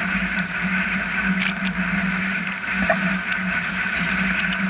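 Steady wind and choppy sea waves washing against the shore, with a constant low hum underneath and a few faint clicks.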